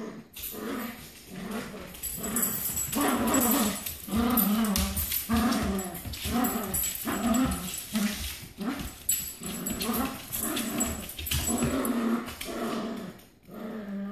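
Dogs growling in play while tugging a toy between them: a run of short rumbling growls, about two a second.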